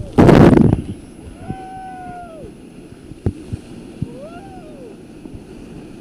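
Whitewater crashing over a raft and onto the camera microphone in one loud splash lasting under a second, followed by rushing river water and rafters shouting several times.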